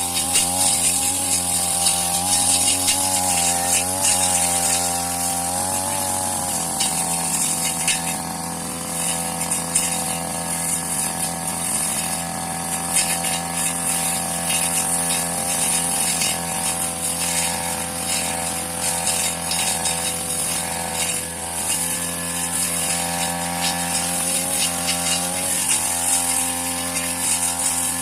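Two-stroke brush cutter cutting grass: its small engine runs steadily at high revs, the pitch wavering slightly with the load, and a steady high hiss rides above it.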